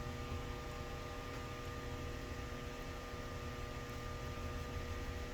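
A steady electrical hum of several held tones over low background noise.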